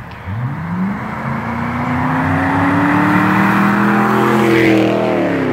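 Ford 5.0 HO (302 Windsor) V8 with its mufflers removed and catalytic converters kept, accelerating: the revs climb steadily for about four seconds, then drop sharply near the end.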